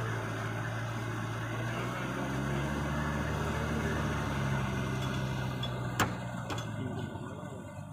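Yanmar EF 494 tractor's diesel engine running steadily under load as it tills a flooded rice paddy, growing fainter after about six seconds. A single sharp click stands out about six seconds in, followed by a few faint ticks.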